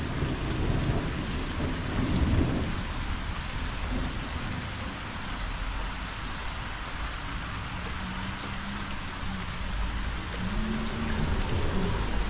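Heavy rain falling steadily on the surface of the canal water, with a low rumble in the first couple of seconds.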